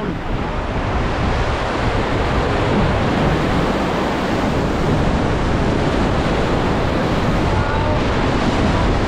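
Whitewater rapids of the Seti River rushing steadily around a raft, with wind buffeting the microphone.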